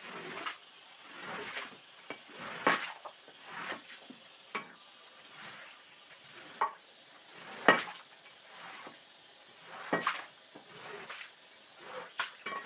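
Long-handled iron scraper pushed in strokes across a soaked rug, wet scraping swishes about once a second as it squeezes muddy water out of the pile, with a few sharp clacks as the blade is set down.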